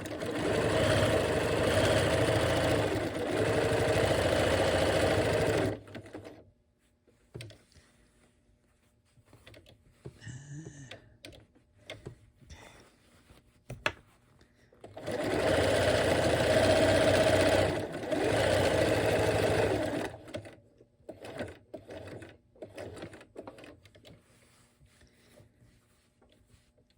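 Bernina 1130 sewing machine running a decorative stitch, in two runs of about six and five seconds (the first from the start, the second about fifteen seconds in), each briefly slowing partway, with quieter fabric handling between them.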